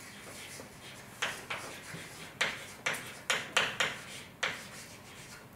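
Writing on a board in a lecture room: about eight sharp, irregular taps and scratches spread over a few seconds.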